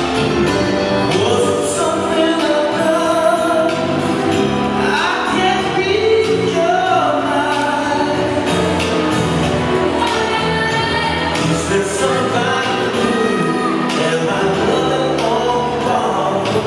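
Latin dance music with a singer and a steady beat, played for couples dancing.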